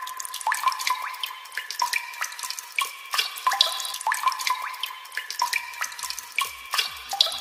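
Water splashing and dripping, a dense run of quick plinking drops, standing in for a man urinating onto a raincoat; it cuts off suddenly at the end.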